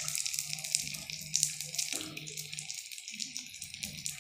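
Anarse, poppy-seed-coated rice-flour sweets, deep-frying in a kadhai of hot oil: a dense, continuous sizzling crackle.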